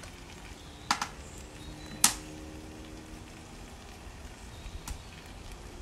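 Goat meat sizzling steadily as it fries in a pot, with a few sharp knocks of a utensil against the pot, the loudest about two seconds in and ringing briefly after.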